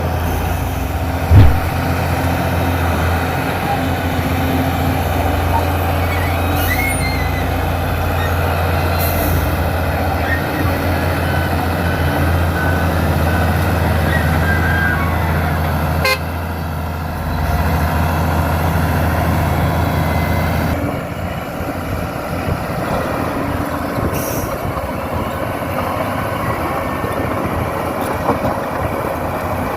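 New Holland crawler dozer's diesel engine running steadily, with one loud thump about a second and a half in.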